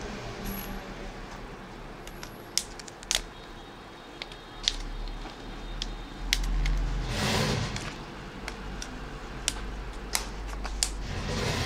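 Scattered sharp plastic clicks and snaps as the clips of a Samsung Galaxy S4's plastic frame are prised apart by fingernail, with two longer rustles of handling, over a low steady hum.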